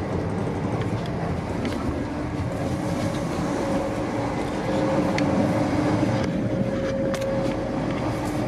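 Interior running noise of a Hitachi-built LNER Azuma train at speed: a steady rumble with two steady hums, one lower and one higher, and a few faint clicks.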